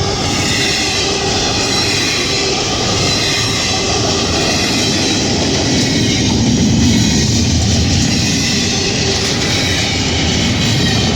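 CSX freight train passing at close range, a loud, steady rolling rumble from the train on the rails.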